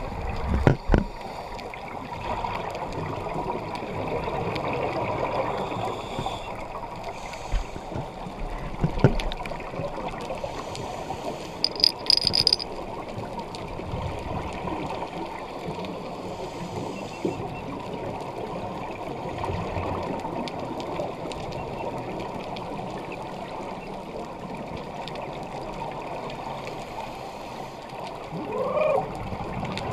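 Muffled underwater rushing and gurgling of scuba divers' regulators and exhaled bubbles, heard through a camera's waterproof housing. A few knocks sound near the start and around the middle, a quick run of clicks follows, and a brief wavering gurgle comes near the end.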